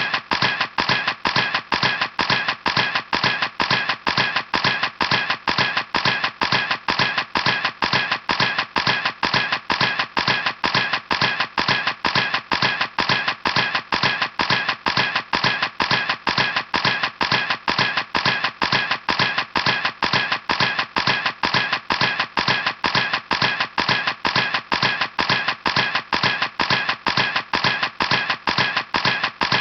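A camera shutter clicking over and over at a steady, even pace, about three clicks a second.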